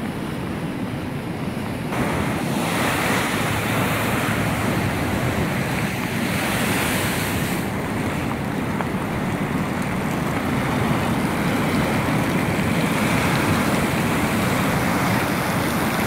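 Rough Atlantic surf breaking and washing against a concrete seawall in a continuous rushing roar, with wind buffeting the microphone. It grows louder about two seconds in.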